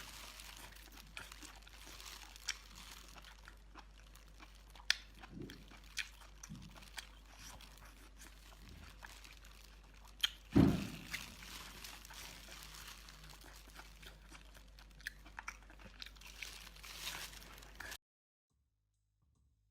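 Close-up eating sounds: a person chewing and crunching food, with scattered sharp crunches and one louder thump about halfway through. The sound cuts off abruptly near the end.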